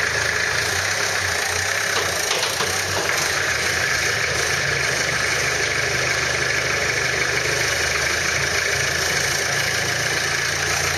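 UMM 4x4 running with a steady engine drone, with a couple of faint clicks about two seconds in: the strange clicking the vehicle makes when it moves.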